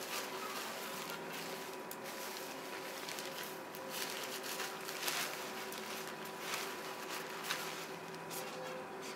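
Nylon tent fabric rustling and swishing in soft, irregular bursts as the gear shed is draped and pulled over the tent poles, over a steady faint hiss.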